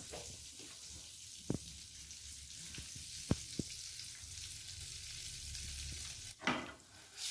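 Corn kernels sizzling in melted butter in a frying pan, a steady hiss. A few sharp clicks come about a second and a half and three seconds in, and a louder rush of noise near the end.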